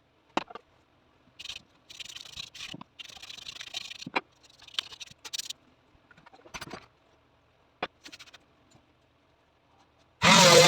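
Wood and tools being handled: a few sharp knocks and short scraping strokes. Near the end an electric power tool switches on and runs loudly at a steady speed.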